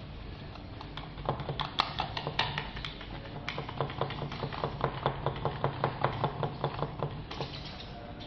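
Paintbrush stippling resin-soaked fibreglass chopped strand mat, a run of short wet taps at about three a second that tails off near the end: pressing the mat down until it is wetted through with resin.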